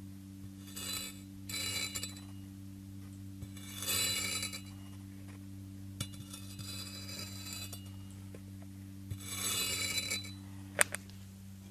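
Crunchy kinetic sand being cut, giving several short crackling crunches a second or two apart. There is one sharp click near the end and a steady low hum underneath.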